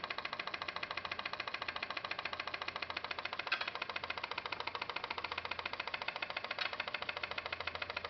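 Homemade pop pop boat motor running: its tiny water-balloon diaphragm over a plastic pipette flutters as steam pulses in the quartz-tube boiler, giving a rapid, even, subtle pulsing. Two clicks about three seconds apart.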